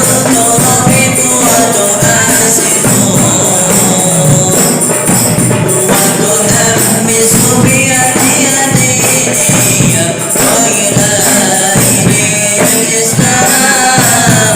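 A high singing voice over hand percussion with bright tambourine-like jingles, in a steady rhythm.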